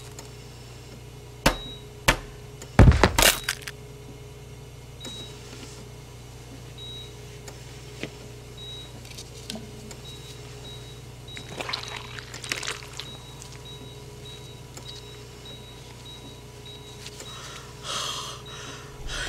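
A large egg's shell being cracked open: two sharp knocks, then a loud crunching break about three seconds in. Softer handling sounds follow later, over a low steady hum and faint intermittent beeping.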